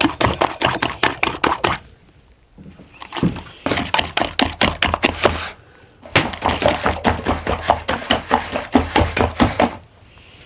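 Spiral wire whisk beating a foamy mixture in a glass bowl, the wire clicking against the glass several times a second. The whisking comes in three bouts with two short pauses.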